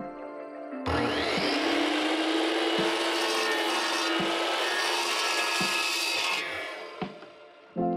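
Sliding compound miter saw cutting fiber cement (Hardie board) siding. It spins up about a second in, runs loud and steady through the cut for about five seconds, then winds down.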